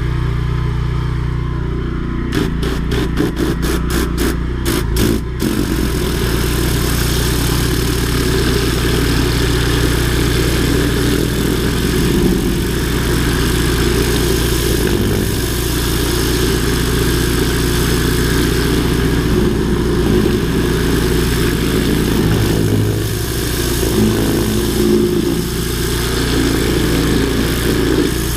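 Drain-jetting machine's engine running steadily. A few seconds in comes a rapid run of sharp pulses, then a steady hiss of high-pressure water from the jet.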